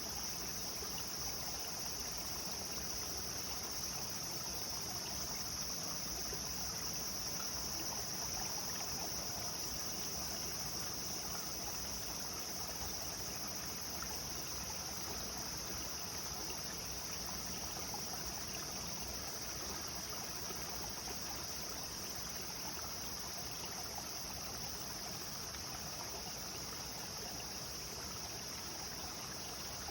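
Clear stream running steadily over rocks, with an unbroken high-pitched insect chorus above the water.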